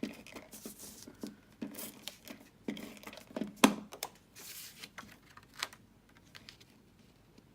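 Card stock and patterned paper being handled and stuck down with adhesive: irregular clicks and short rustling, tearing sounds, with the loudest click about three and a half seconds in. The sounds stop about six seconds in.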